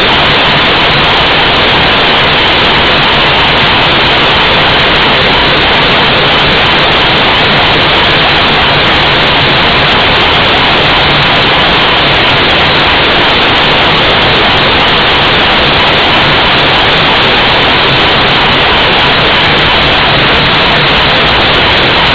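Naval ship's compressed-air compressor running: a loud, steady noise with a faint hum underneath that does not change.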